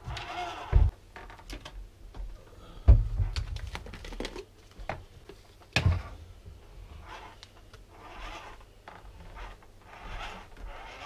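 Kitchen handling noises: clicks, knocks and light scraping as a plastic protein-powder tub, its scoop and a plastic shaker cup are handled on a counter and a wall cabinet is shut. Three louder thumps stand out, about one, three and six seconds in.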